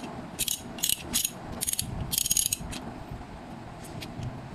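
A 1/2-inch drive ratchet handle being swung back and forth, its pawl clicking in several short bursts of rapid clicks over the first three seconds, then only a few faint ticks.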